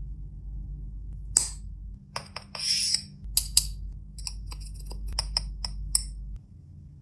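A string of sharp light clicks and taps, with a short rustle among them, from a mobile phone and its packaging being handled, over a low steady hum.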